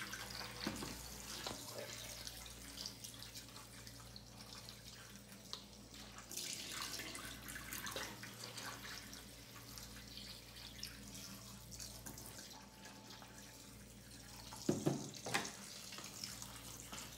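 Cold water running from a kitchen tap into a plastic bowl of chicken wing drumettes and splashing into the sink as the chicken is rinsed and the bowl tipped to drain. There are a couple of short knocks near the end.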